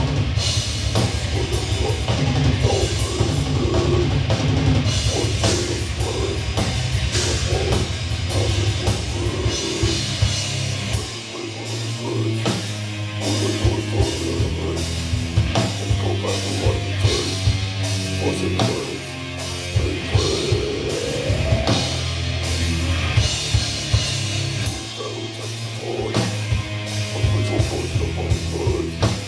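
A heavy metal band playing live: electric guitar, bass and a drum kit. Fast, dense drumming for the first eleven seconds or so, then the music changes to a sparser section.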